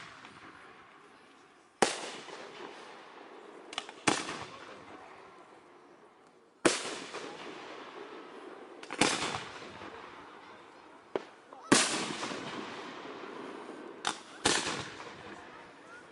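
Aerial firework shells bursting overhead: about eight sharp bangs, one every two seconds or so, each trailing off in a long fading crackle and echo.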